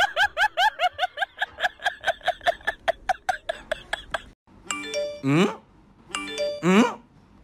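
A fast run of short, high-pitched cries, about five a second, that grows fainter over about four seconds. Then a looping sound-effect jingle starts: stepped chime notes with a rising slide-whistle whoop, repeating about every one and a half seconds.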